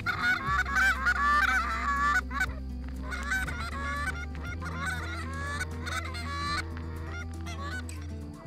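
Canada geese honking and cackling. A dense run of overlapping calls comes in the first two seconds or so, followed by scattered calls.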